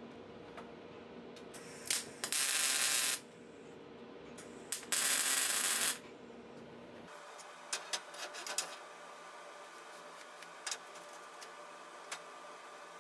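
Handheld angle grinder briefly grinding the edge of a steel sheet in two short passes of about a second each. A few light metallic clinks and clicks follow as steel pieces and tools are handled.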